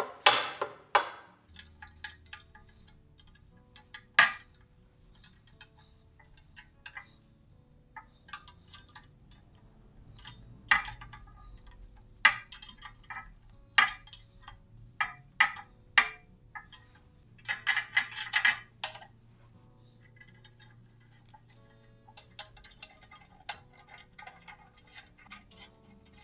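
Irregular metallic clinks and knocks of hand tools and steel parts being handled and fitted on an old power hammer, with faint steady music underneath.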